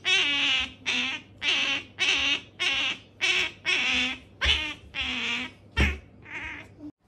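Asian small-clawed otter begging for food: a rapid, even run of high-pitched squeaking calls, about two a second, growing weaker near the end.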